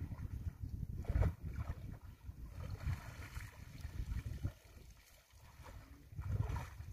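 Wind rumbling on the microphone, with water splashing and sloshing as men wading in a pond lift a fishing net out of the water. The splashing comes in louder bursts about a second in and again near the end, with a quieter stretch around five seconds in.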